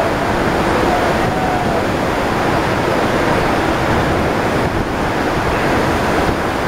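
Steady rush of water pumped over an artificial standing-wave surf ride, the thick sheet of water curling into a breaking barrel.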